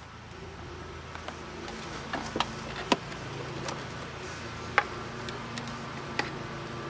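Hand tools clicking and tapping on metal as the throttle body's bolts are worked loose: a handful of sharp clicks at irregular intervals over a steady low hum.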